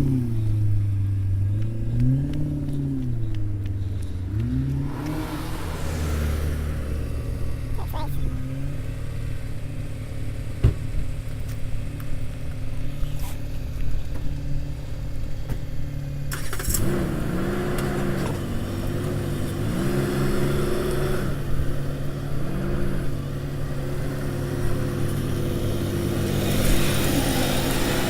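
Car engine idling and being revved in short blips, its pitch rising and falling with each rev. There are a few revs at the start, a steady idle in the middle, then a quick run of several revs and a couple more near the end.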